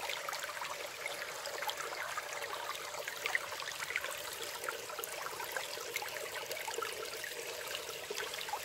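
Small woodland stream trickling over stones and a fallen branch: a steady run of water with many small splashes and drips.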